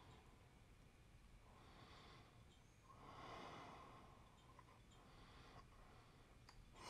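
Near silence: room tone with a faint breath or two from the person at the vise, the clearest about halfway through.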